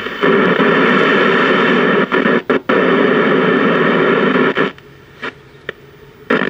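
Loud hissing static from the speaker of a 1968 RCA Victor tube portable TV, cutting out and back in abruptly as the worn on-off/volume knob is worked. It drops out twice briefly, stops for over a second with two short blips, then returns near the end. The set's power switch is bad.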